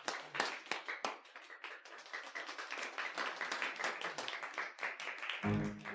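A small group of people clapping, many separate hand claps overlapping. Music with brass comes in near the end.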